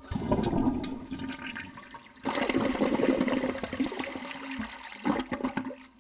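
Water rushing and gurgling for several seconds, getting louder about two seconds in and fading out near the end.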